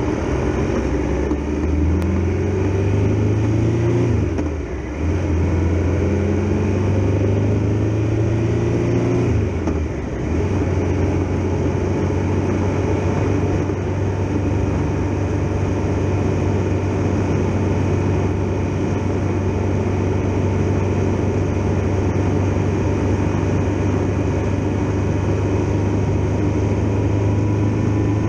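Triumph Tiger Explorer XRx motorcycle's three-cylinder engine pulling up through the gears, its pitch rising twice with a shift after each. It then runs at a steady cruise.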